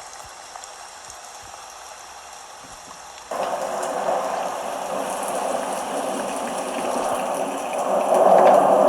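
Rain falling, faint at first; about three seconds in, a much louder, denser patter of rain cuts in abruptly and grows louder near the end.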